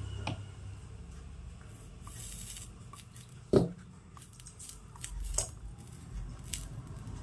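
Small clicks and taps of tools and wire being handled while soldering a connection on an air-conditioner circuit board, with one louder knock about three and a half seconds in and a brief hiss a couple of seconds in, over a steady low hum.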